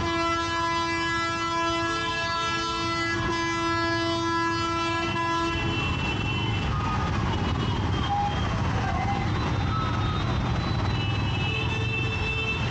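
A vehicle horn held down for about six seconds, then cut off, over steady road-traffic noise. Shorter horn blasts sound again near the end.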